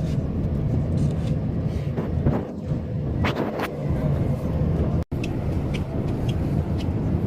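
Tour boat's engine running steadily while the boat is under way: a continuous low rumble. It drops out for an instant about five seconds in.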